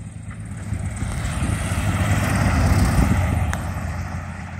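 Cessna 170's flat-six Continental engine and propeller running as the taildragger rolls out along the runway after landing, passing close by. The sound swells to its loudest about three seconds in and then fades as the plane moves away.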